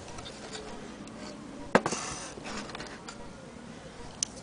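Handling of an antique Black Forest cuckoo mantle clock's wooden case: one sharp knock about two seconds in, followed by a brief rustle, and a small click near the end.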